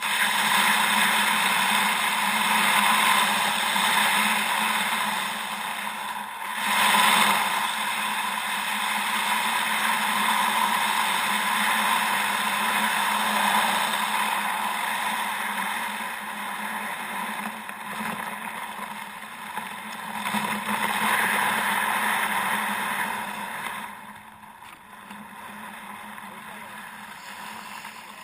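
Kayak hull pushing through honeycombed (candled) lake ice: a steady crunching, tinkling hiss that eases off for a moment about six seconds in and becomes quieter about 24 seconds in.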